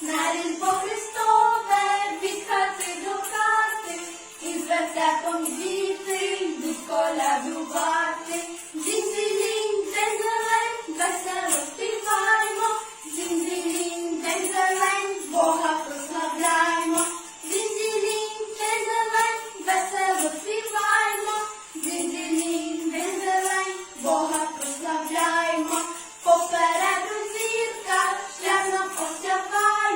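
Two female voices singing a Ukrainian Christmas carol (koliadka) in high, phrase-by-phrase melody, with steady jingling of bells or tambourine jingles underneath.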